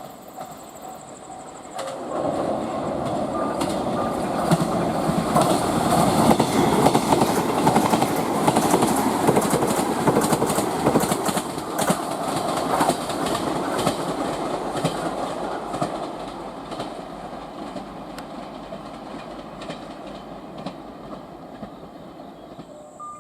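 A train running past on the rails, its wheels clacking over the rail joints. It grows loud about two seconds in, holds for around ten seconds, then slowly dies away.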